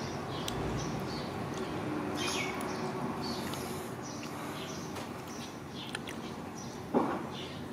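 Scattered short, high chirps and squeaks from a small animal or bird over a steady background hiss, with one sharp knock about seven seconds in.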